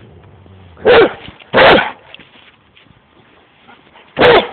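Giant Schnauzer barking: three loud, deep single barks, two in quick succession about a second in and one more near the end.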